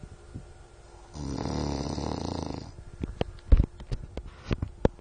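A man snoring: one long snore starting about a second in and lasting about a second and a half. It is followed by a run of sharp knocks and clicks, the loudest about halfway through.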